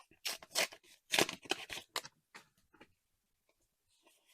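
Trading cards being handled: a quick run of papery rustles, slides and light taps on the first three seconds, then quiet.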